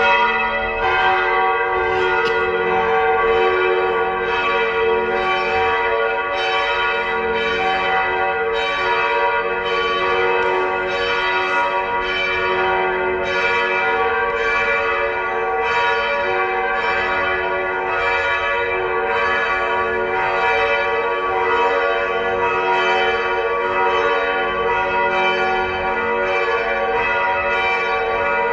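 Several church bells pealing together, their strokes overlapping into a continuous ringing, with a new strike about every second or less.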